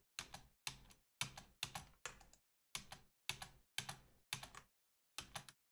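Computer keyboard keystrokes: short, faint clusters of key clicks, about two a second, with silence between them. They are the Ctrl+Alt+Space shortcut being pressed to toggle Blender's view between full screen and normal.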